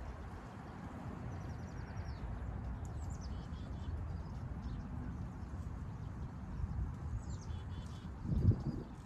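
Small birds chirping in two short bursts of quick, high, repeated notes over a steady low rumble, with a heavier thump near the end.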